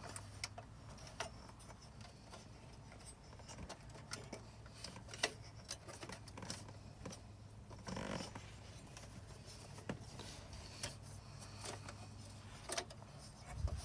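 Light metallic clicks, taps and scrapes of a car radio's metal mounting basket being slid onto the radio chassis from the back and worked to line up, with a few louder knocks and a faint steady low hum underneath.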